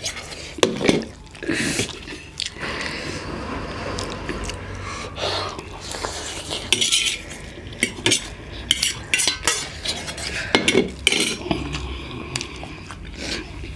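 Fork and spoon clinking and scraping on a steel plate while spicy noodles are eaten and slurped, with many short clicks throughout.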